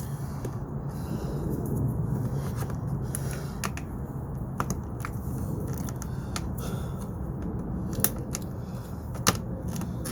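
Scattered small plastic clicks and scrapes from a headlight switch being pried out of its clips in a Chrysler 300's dashboard, over a steady low hum.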